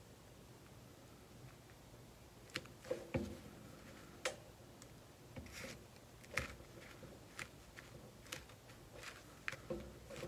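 Hands handling paper and card pieces: scattered light taps, clicks and rustles at irregular intervals, starting a couple of seconds in.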